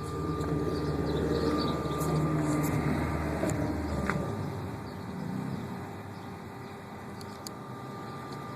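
Subaru WRX STI's turbocharged flat-four engine pulling under load for about four seconds, then easing off with a click and running quieter, with a faint steady whine throughout. The car is misfiring on all four cylinders and losing power.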